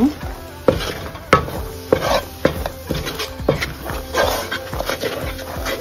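Wooden spatula stirring and scraping thick, bubbling jaggery syrup in a nonstick pan, with a knock or scrape about every half second. The syrup is nearly at its thick caramelised setting stage, stirred so it doesn't burn.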